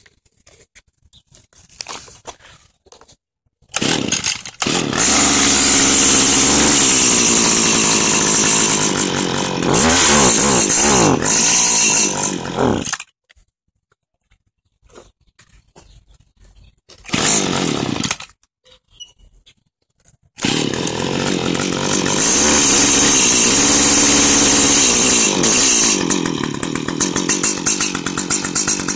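Stihl HS80 hedge trimmer's small two-stroke engine cold-started with no primer, its primer bulb broken: it catches about four seconds in, runs and is revved up and down, then dies about halfway. After a brief burst it starts again and runs on, revved up and down once more.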